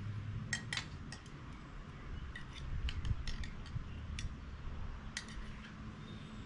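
Scattered light clinks and taps of utensils and dishes on a table during a meal, irregular and short.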